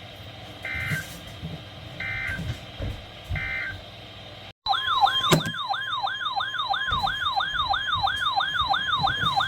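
Emergency Alert System tones on a NOAA weather radio broadcast. Three short data bursts of the SAME header come first, about a second and a half apart. Then the 1050 Hz attention tone starts, with a siren-like wail over it rising and falling about three times a second; this announces a new severe weather warning.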